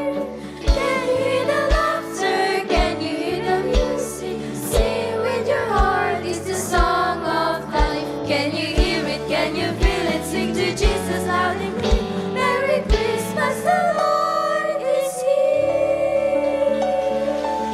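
Children's choir singing a gospel song over instrumental accompaniment with a low drum beat about once a second; near the end the beat drops out and a held chord carries on under the voices.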